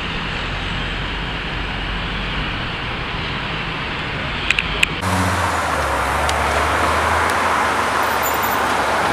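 Street traffic with car engines running and passing. About five seconds in the sound changes abruptly to a louder car engine with a low steady hum over road noise.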